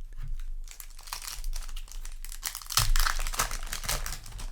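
Foil trading-card booster pack crinkling as it is handled and torn open, loudest about three seconds in.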